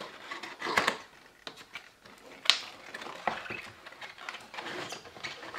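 Cardboard retail box being opened by hand: its end flap pulled open and the box handled, with irregular scuffs and rustles and one sharp click about two and a half seconds in.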